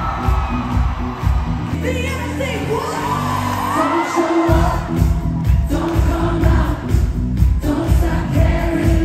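Live pop concert music heard from the audience: a heavy, steady beat under a singer's voice, with crowd noise. The beat drops out briefly about two seconds in, then comes back.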